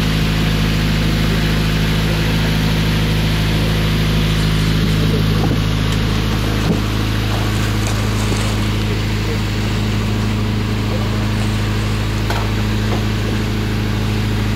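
Fishing boat's engine running steadily, an even low drone, with one brief knock about halfway through.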